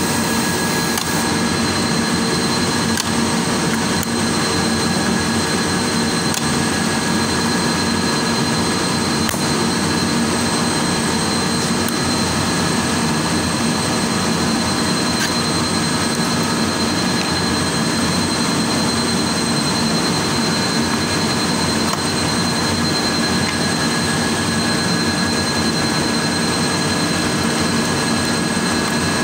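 Steady, loud machinery drone with constant high-pitched whines, as from running machines and cooling fans. A few faint clicks and taps rise above it.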